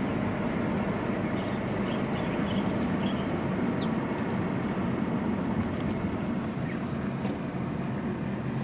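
Honda Civic FB's 1.8-litre four-cylinder engine running steadily, with road noise as the car drives.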